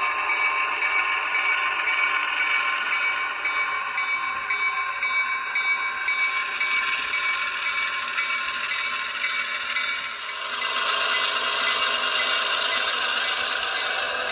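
Diesel switcher engine sound from an ESU LokSound decoder, played through the small onboard speaker of an HO scale model locomotive as it runs along the track. Steady running with a light rattle; about ten seconds in it briefly dips, then comes back stronger.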